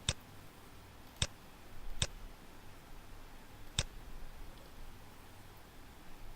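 Computer mouse clicking four times at uneven intervals, sharp single clicks over a faint low hum.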